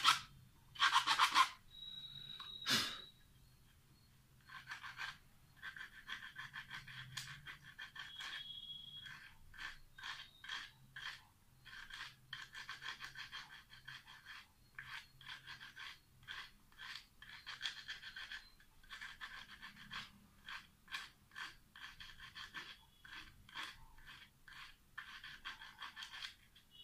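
A hand tool scraping the copper commutator of a small motor armature in short, quick strokes that come in irregular runs. There is a sharp click about three seconds in.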